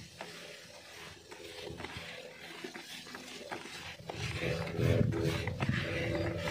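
Hands mixing and rubbing damp fishing groundbait in a plastic bucket, with scattered soft crunching clicks. A low rumble swells up about four seconds in.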